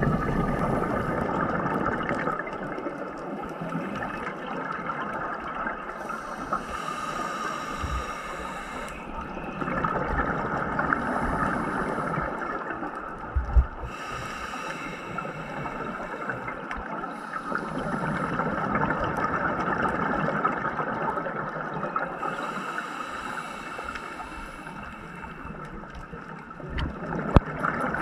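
Muffled underwater rushing and gurgling of water, picked up by a camera held below the surface, with a hiss that swells and fades every few seconds. Two sharp knocks, one about halfway through and one near the end.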